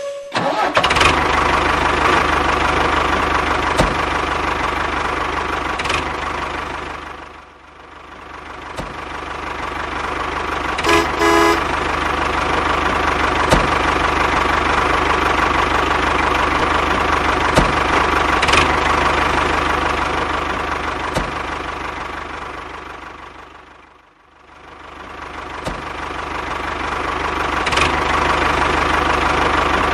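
DIY mini tractor running with a steady, engine-like drone that fades down and back up twice. A short horn toot sounds about 11 seconds in.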